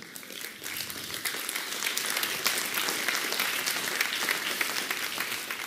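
Audience applauding, the clapping building up over the first couple of seconds and then holding steady.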